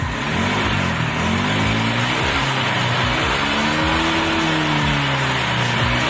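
Honda Vario 125 scooter's single-cylinder four-stroke engine running and being revved in repeated short blips, the pitch rising and falling about once a second, as a test run with fresh engine and gear oil.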